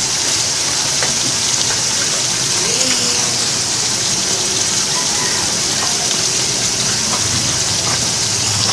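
Ground beef with tomato paste sizzling in a large aluminium pot: a steady, even hiss with a few small pops.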